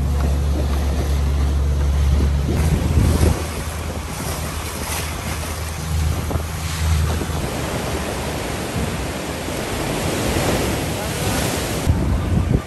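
Suzuki 90 outboard motor running with the boat under way, a steady low hum. Wind buffets the microphone and water rushes past the hull. After about seven seconds the engine hum fades back, leaving mostly wind and water noise.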